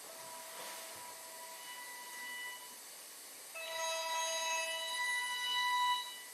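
Faint held electronic tones at a few pitches, growing louder about three and a half seconds in as several tones sound together, then stopping about six seconds in.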